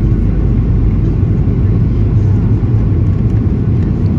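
Steady low rumble of cabin noise inside a Boeing 737-800: its CFM56 jet engines and the airflow around the fuselage, running evenly with no change in pitch or level.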